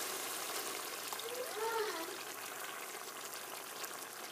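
Coconut milk poured in a stream into a hot pot of shrimp, pigeon peas and red bell pepper, splashing over a faint sizzle.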